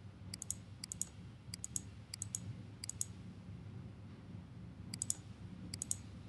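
Computer mouse button clicking: about seven quick groups of two or three clicks, most in the first three seconds and two more near the end, over a faint low hum.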